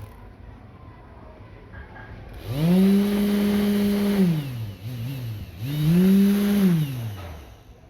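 775 12 V DC motor, rewound for higher speed, switched on and off: it spins up to a steady high whine, holds for about two seconds and winds down, gives a brief blip, then spins up and winds down once more. A hiss rides along with the whine.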